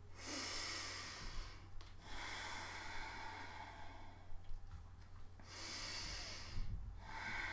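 A person breathing slowly and audibly: three long, hissing breaths of about two seconds each.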